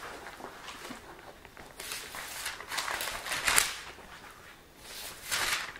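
Pages of a Bible being leafed through to find a passage, with a few soft papery rustles about two, three and five seconds in.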